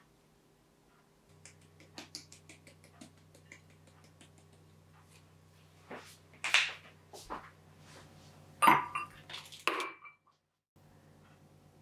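Tableware handled on a table: a run of light clicks and taps, then louder clinks of dishes and glass halfway through and again near the end, the last one ringing briefly.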